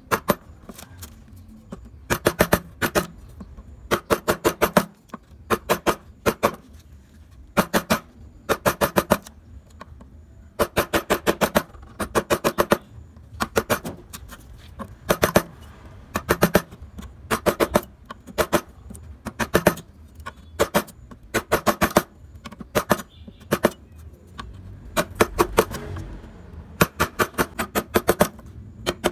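Wood-carving chisel tapped in quick runs of sharp strikes, several a second, with short pauses between runs, as it cuts into a carved wooden ornament.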